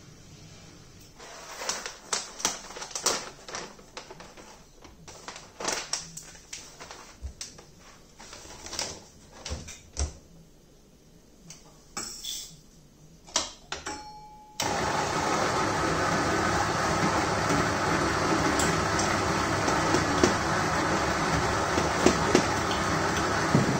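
Clicks and knocks of coffee gear being handled. About two-thirds of the way in, an electric coffee grinder starts suddenly and runs with a loud, steady whirr.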